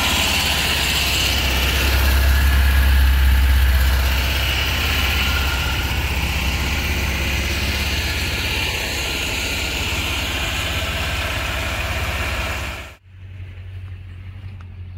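Small air-cooled gasoline engine of a Mud Skipper surface-drive mud motor running steadily, a loud drone with a strong low rumble, stopping abruptly about thirteen seconds in.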